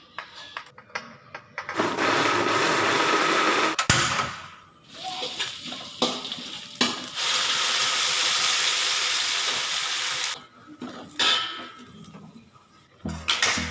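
Electric blender grinding the chilli, shallot and garlic spice mix, run in two bursts of about two and five seconds with a short stop between.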